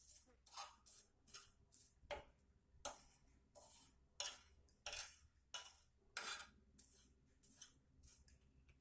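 Faint, repeated scrapes of a spoon working dry leaves being charred to ash in a pan, about one or two short strokes a second.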